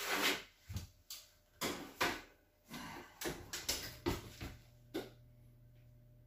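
Metal baking sheet of chicken going into an electric oven: a run of clanks and knocks as the pan slides onto the rack and the oven door shuts. A low steady hum sets in about four seconds in.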